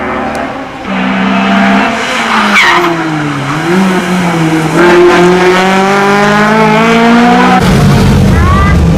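Hillclimb race car engine at high revs, its pitch climbing and dropping back at gear changes, with a brief tyre squeal a few seconds in. Near the end the sound switches abruptly to a deeper, rougher engine note.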